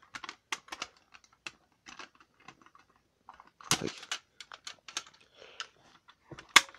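Irregular light clicks and taps, with a louder knock a little past halfway and another near the end.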